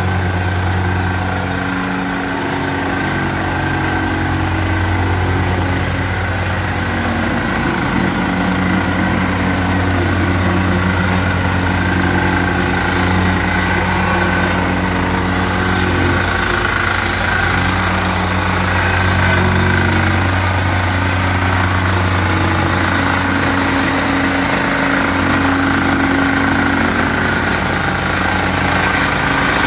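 Mikasa MVH-150 reversible plate compactor running, its engine and vibrating plate making a steady drone as it compacts loose soil and gravel.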